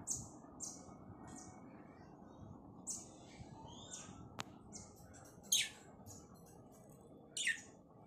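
Pet cockatiels chirping: a run of short, high chirps, then two louder calls that slide down in pitch, one a little past the middle and one near the end. A single sharp click comes about halfway through.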